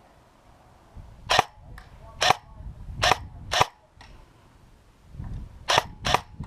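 Airsoft gun firing single shots: four sharp cracks spaced under a second apart, a pause, then two more near the end.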